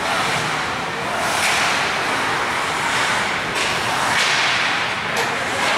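Ice hockey skates scraping and carving across the rink in repeated short swishes, over a steady arena din, with a sharp crack of stick on puck about five seconds in.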